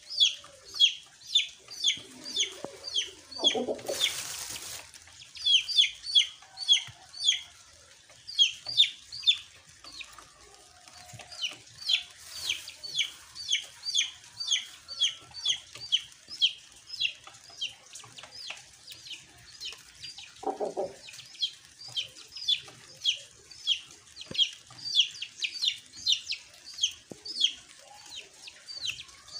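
A bird peeping steadily, about three short, high, falling peeps a second without a break. A short scratchy rustle about four seconds in, and a brief lower sound around twenty seconds in.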